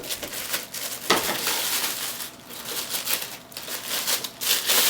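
Plastic packaging being handled by hand, crinkling and rustling irregularly, with a couple of sharp clicks near the start and about a second in, as a Blu-ray drive is unwrapped.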